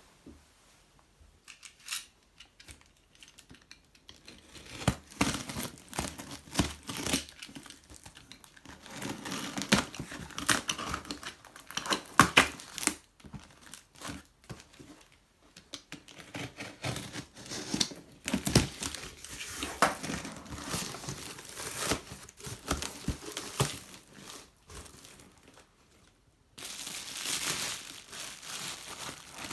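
Packing material crinkling and tearing as a parcel of used power tools is unpacked by hand, in irregular rustles and sharp crackles. A denser, steadier rustling begins near the end.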